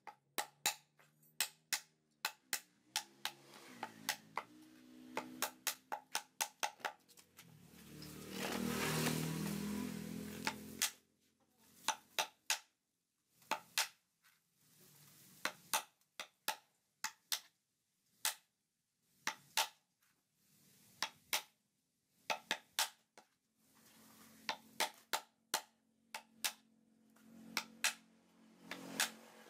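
Hammer striking a chisel held in a coconut, chiselling out the inside of the nut: sharp knocks in short runs of a few strikes with pauses between. About eight seconds in, a louder low noise swells and fades out after about three seconds.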